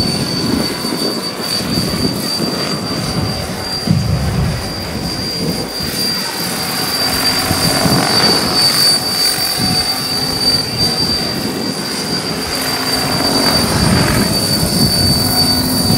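Large radio-controlled scale model of a CH-113 Labrador tandem-rotor helicopter in flight: rotor chop over a steady high whine, growing a little louder near the end as it comes overhead.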